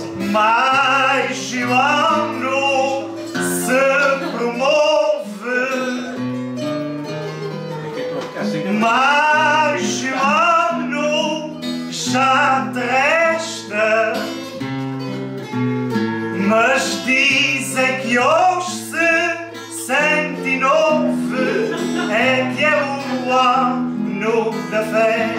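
A man singing phrase after phrase over plucked guitar-type string accompaniment, with brief instrumental stretches between phrases.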